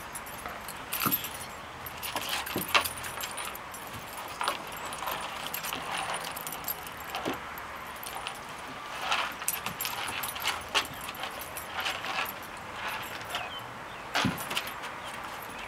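Two dogs play-wrestling on a wooden deck: collar chain and tags jangling and paws scuffling on the boards, with a few sharper knocks as they bump and tumble.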